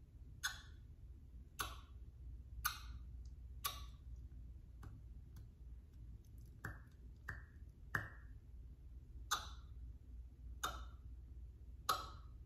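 A small facial suction cup being flash-cupped around the lips, popping sharply each time it is pulled off the skin: about ten pops, roughly one a second.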